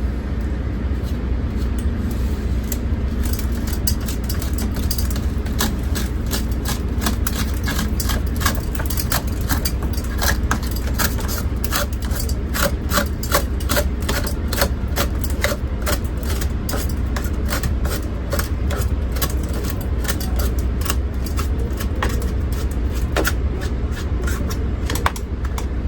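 Shattered laminated glass being scraped out of a truck door's window track: a long run of quick clinks and ticks from the glass fragments over a steady low rumble.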